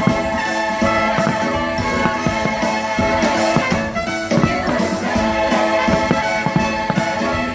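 Music from a fireworks-show soundtrack, with sharp hits through it.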